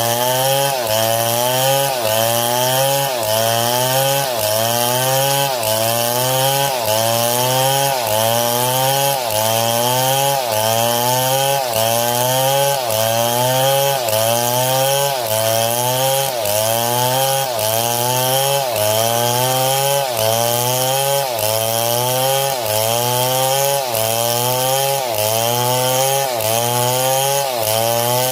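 A motor rising in pitch and dropping back about once a second, in an even, repeating cycle.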